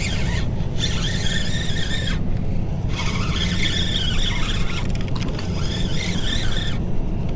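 Fishing reel squealing in stretches of one to two seconds with short breaks, as a hooked fish pulls against the bent rod. A steady low rumble runs underneath.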